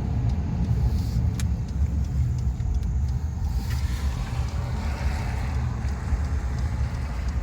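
Car driving, with a steady low engine and road rumble.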